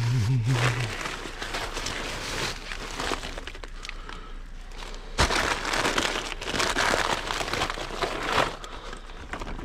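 Plastic produce packaging and bags crinkling and rustling as food is handled and shifted in a dumpster, louder for a few seconds about halfway through.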